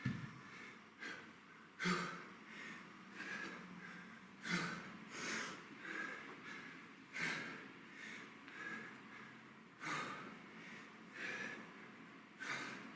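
A man breathing hard from exertion during kettlebell deadlifts: sharp, forceful exhales about every two and a half seconds, with quicker, softer breaths between.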